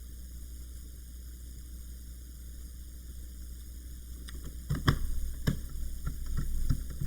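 Small screws being set into a laptop's case and handled with a screwdriver: a run of small clicks and knocks starting about two-thirds of the way in, the two loudest about half a second apart, over a steady low hum.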